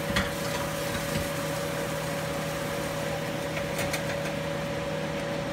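Steady machine hum with a constant pitched drone, broken by a few faint clicks.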